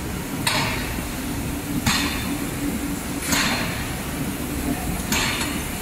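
Factory machinery with a steady low hum, broken by short hissing bursts like released compressed air, about one every one and a half seconds.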